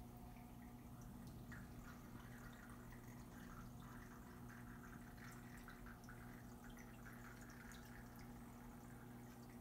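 Faint water circulation in a saltwater aquarium: light trickling and dripping over a steady low pump hum.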